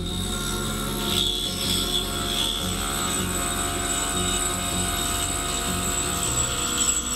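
Face milling cutter with indexable inserts cutting the flange face of a cast stainless steel turbocharger exhaust housing on a CNC machine: a steady machining noise with thin, high, steady tones. Background music runs underneath.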